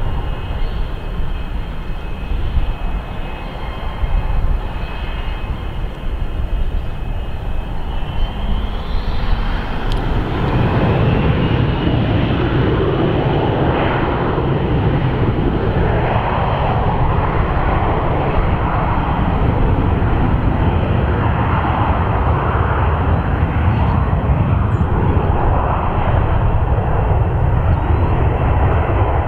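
Regional jet's twin rear-mounted turbofan engines whining at low thrust, then about nine seconds in spooling up with a rising whine to takeoff power. A loud steady jet roar follows as the takeoff roll gets under way.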